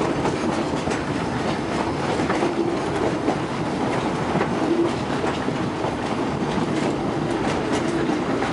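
Steam-powered passenger train rolling along its track, heard from an open-sided car: a steady rumble of wheels on rail with scattered clicks and clacks over the rail joints.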